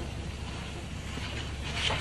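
Steady low rumble from a commercial stone-oven kitchen, with a brief scraping hiss near the end.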